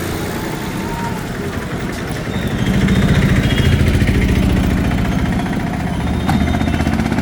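A motor vehicle engine running close by, with a steady low throb that grows louder about two and a half seconds in.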